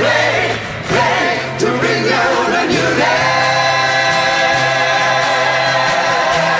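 Japanese song with sung vocals over a steady band backing; the melody moves for the first three seconds, then settles into a long held note with vibrato.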